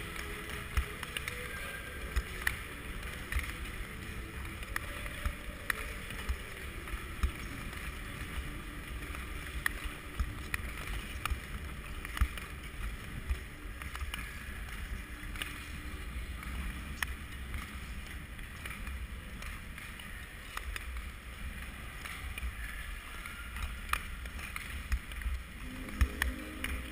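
Speed-skate blades scraping and swishing on ice stroke after stroke, with scattered sharp clicks, under a steady low rumble of wind on the microphone of a moving skater's camera.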